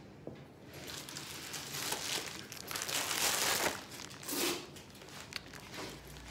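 Close crinkling and rustling handling noise near the phone's microphone, loudest about three seconds in.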